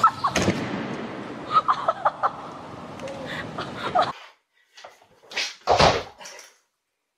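Heavy punching bag struck, a couple of short loud thuds about a second apart, the last the loudest. Before that, a noisy stretch with scattered knocks and bumps that cuts off abruptly.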